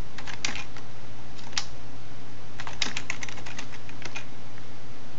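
Computer keyboard keystrokes: short bursts of quick key clicks with pauses between, as commands are typed.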